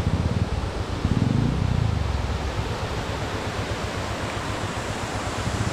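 Small waterfall rushing steadily into a river pool, with wind buffeting the microphone in a low rumble for about the first two seconds.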